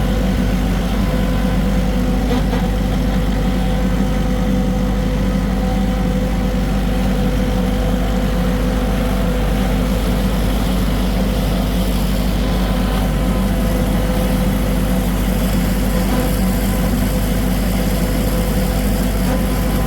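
LS tractor's diesel engine running steadily at an even pitch, driving a Tar River drum mower.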